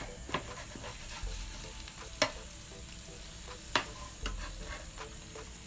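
Grouper pieces sizzling as they fry in shallow oil in a steel pan. A metal spatula clicks sharply against the pan twice, about a second and a half apart.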